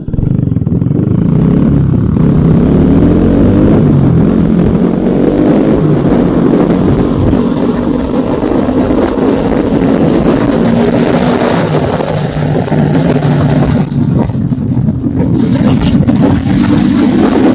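Motorcycle engine running loud under way, its pitch climbing and shifting as the bike accelerates.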